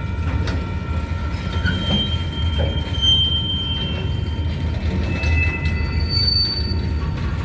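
Freight train of coil cars rolling slowly past: a steady low rumble from the wheels, with several high, steady squealing tones from wheels on the rail that come and go, and a few faint clicks.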